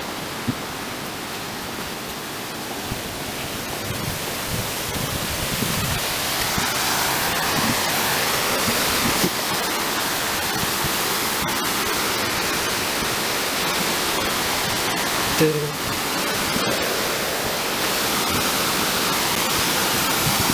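Waterfall water rushing in a steady, even wash of noise that grows louder a few seconds in.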